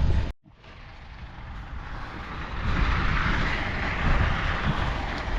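Wind rushing and buffeting on the microphone, an uneven low rumble under a steady hiss. It cuts out abruptly for a moment near the start, then builds back up.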